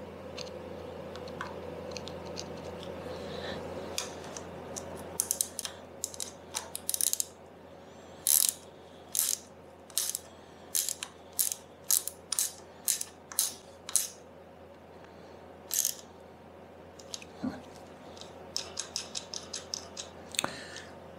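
Metal clicking as a long-shafted driver turns the pivot bolt of a Lambretta TV175 handlebar lever: a string of sharp clicks about one or two a second, then a quicker run of fainter clicks near the end.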